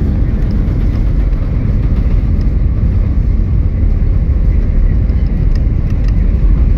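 Steady low rumble inside the cabin of an Airbus A320-212 from its jet engines and airflow, with a few faint rattles near the end.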